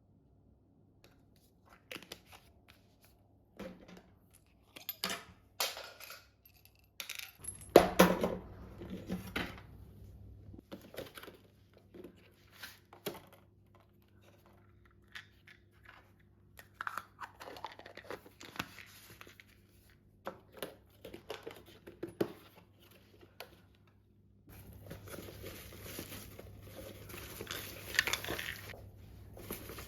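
Kitchen handling sounds: food packaging crinkling and tearing, with clicks and knocks of containers being handled and set down, the loudest about a quarter of the way in. A steady rushing noise sets in near the end.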